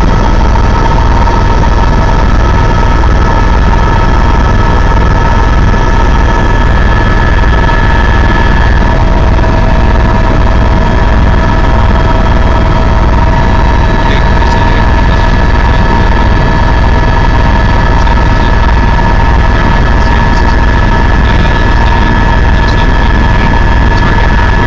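Helicopter in flight heard from inside the cabin: loud, steady engine and rotor noise with a constant high whine over it.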